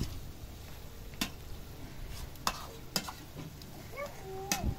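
A utensil stirring food in a cooking pot, knocking sharply against the pot a few times.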